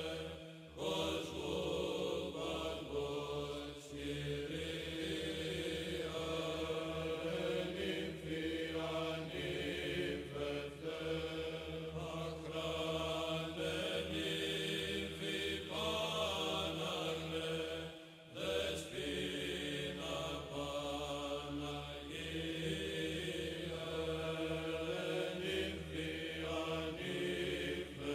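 Background music of a chant, likely Byzantine: a sung melody over a steady held drone note, with short breaths between phrases.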